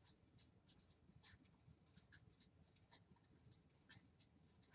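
Marker pen writing on a white board: a run of faint, quick, high-pitched scratchy strokes as the words are written out.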